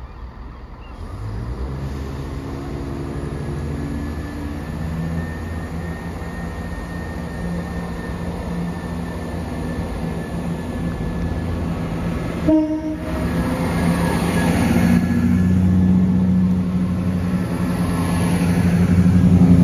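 Class 170 Turbostar diesel multiple unit running under power along the platform, its underfloor diesel engines growing louder as it comes close and passes. A brief horn note sounds about two-thirds of the way through.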